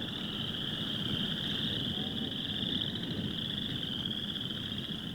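Chorus of frogs trilling steadily in a high-pitched, fast-pulsing band, with a low rumbling noise underneath.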